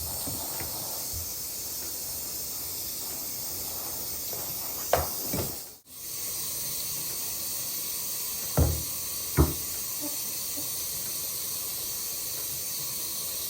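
Warm bath water running steadily from a tap, a continuous hiss, with a few soft knocks about five seconds in and twice near nine seconds.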